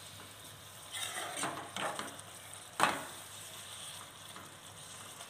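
Spatula stirring and scraping mushrooms frying in a nonstick kadai over a steady sizzle. There are several short scrapes, with one sharper knock about three seconds in.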